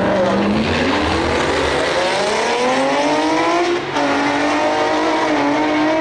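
Single-turbo 2017 Ford Mustang accelerating hard down a drag strip from the launch. Its engine note climbs steadily in pitch through the gear, dips briefly at a shift about four seconds in, then climbs again.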